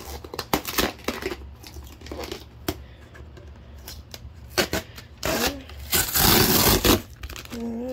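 Cardboard shipping box being handled and its flaps pulled open: scattered rustles and knocks, then a loud, drawn-out scraping rasp of cardboard about six seconds in.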